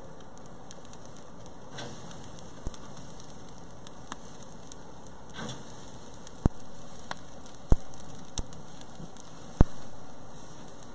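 Beef short ribs sizzling on a grill grate over glowing coals: a steady hiss broken by scattered sharp pops and crackles, the loudest pops falling in the second half.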